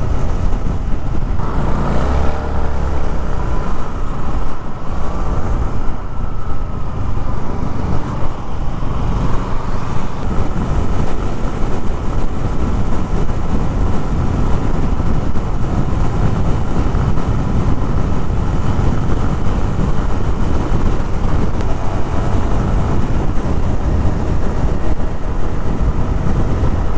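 Motorcycle ridden along a highway: steady wind rush over the microphone, loudest in the low end, with engine and road noise underneath.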